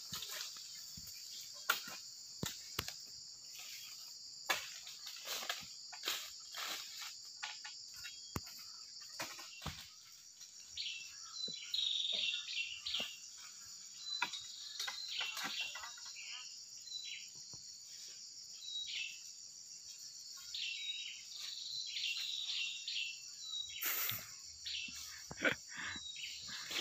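Steady insect drone from crickets or cicadas in the plantation, with scattered rustles and snaps. Short, high bird chirps come in from about eleven seconds on, and there is one brief loud rustle near the end.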